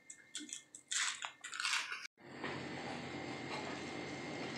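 Plastic wrapper of a processed cheese slice crinkling as it is peeled off, for about two seconds. After a sudden break, a steady sizzle of egg patties frying on a hot iron tawa over a gas flame.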